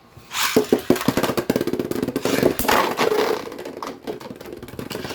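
Plastic Beyblade tops and parts clicking and rattling in a dense, fast run. It starts just after the beginning, is loudest for the first three seconds, then eases off.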